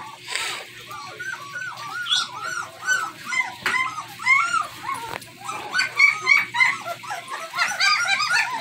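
Newborn German Shepherd puppies squealing and whimpering together, a busy overlapping chorus of short high cries that grows denser near the end. They are hungry puppies crying to be fed while their mother will not settle down to nurse them.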